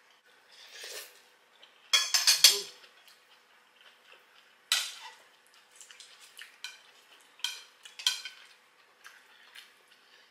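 Metal serving spoon clinking and scraping against a ceramic bowl and plates as food is scooped out. The clinks are sharp, with a loud cluster about two seconds in, single clinks near five and eight seconds, and smaller ticks between.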